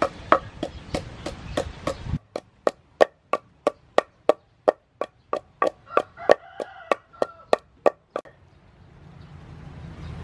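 Wooden pestle pounding red chilies in a wooden mortar: steady, evenly spaced thuds about three a second, stopping about eight seconds in.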